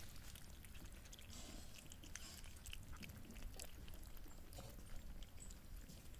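Cats eating at close range: faint, irregular small clicks of chewing.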